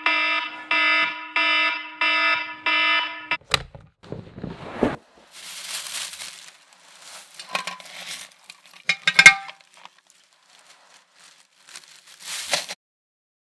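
Electronic alarm beeping in a steady repeating pulse, just under two beeps a second, which stops abruptly a few seconds in. Scattered rustles and knocks follow, with one sharp loud hit near the middle.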